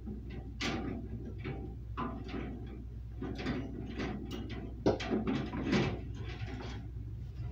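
Glass canning jars clinking and knocking against the rack and each other as they are lowered with a metal jar lifter into a water bath canner: irregular clicks throughout, the loudest knock about five seconds in. A steady low hum runs underneath.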